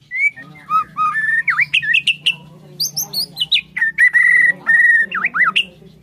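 White-rumped shama (Bornean murai batu) singing a varied song of whistled phrases, quick up-and-down slurs and chattering notes, with a few level whistled notes held in a row past the middle.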